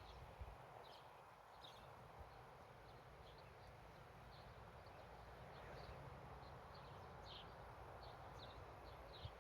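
Near silence: faint outdoor ambience with scattered short, high bird chirps.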